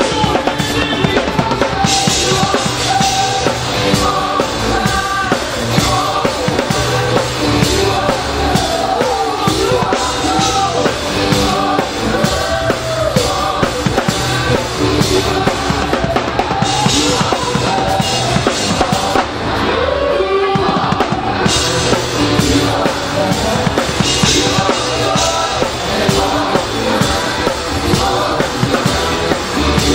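A live gospel band playing, with the drum kit loudest, heard from right beside it on stage: kick, snare and cymbals over keyboards and bass guitar. The cymbals drop out briefly around twenty seconds in.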